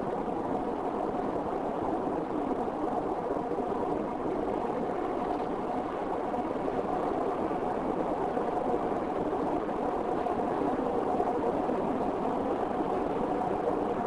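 A car driving at a steady speed: an even, unchanging hum of engine and tyres on the road.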